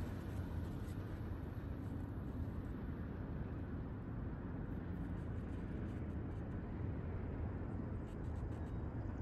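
Low, steady rumble of a freight train that has just passed, moving off down the line.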